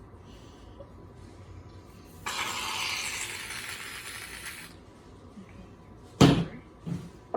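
Aerosol can of shaving cream hissing as foam is sprayed out, for about two and a half seconds, fading off at the end. Then two knocks, the first loud and sharp, the second softer.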